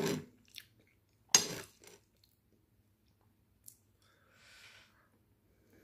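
Quiet sounds of a person eating sausages and mashed potatoes: a sharp click about a second and a half in, a faint click later, and a soft breath near the end.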